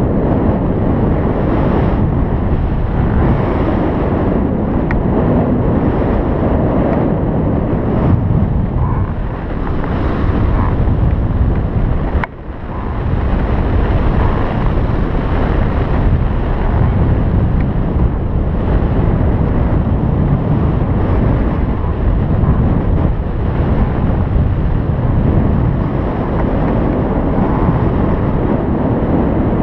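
Wind buffeting the microphone during a paraglider flight: a loud, steady rushing noise that drops away briefly about twelve seconds in, then picks up again.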